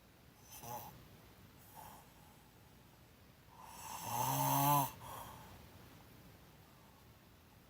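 A woman snoring with her mouth open. There is a short, faint snore about half a second in, then one long, louder buzzing snore about four seconds in that builds and cuts off sharply.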